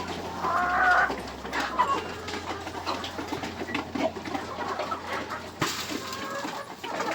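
Chickens clucking and calling, loudest about a second in and again near the end, over scattered small clicks and rustling.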